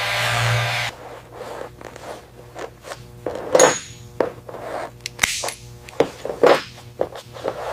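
A power tool whirring cuts off about a second in, followed by irregular scraping, rubbing and sharp clicks of hand tools working on metal parts.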